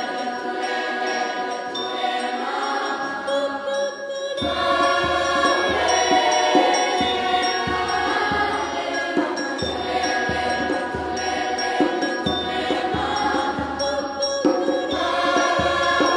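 A children's choir sings sustained chords under a girl soloist's melody. About four seconds in, hand drums come in with a steady beat beneath the voices.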